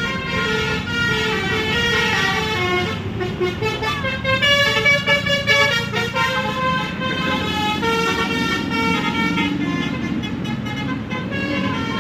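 Indonesian 'telolet' bus horn, a multi-tone musical horn, playing a running tune of changing notes over the low rumble of the bus's engine, loudest near the middle.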